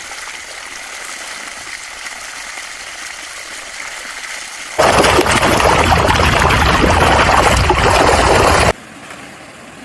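Shallow muddy water running and splashing where a mass of fish is crowded and thrashing, a steady hiss. About five seconds in it cuts suddenly to a much louder rushing of water, which drops off abruptly near the end to a quieter hiss.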